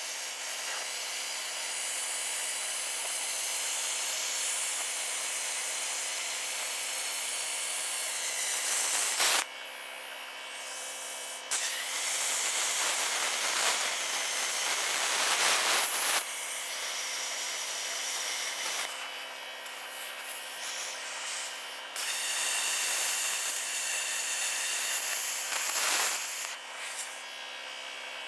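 Plasma cutter arc hissing steadily as it cuts the fire-door opening through a steel car wheel rim, stopping and starting again several times.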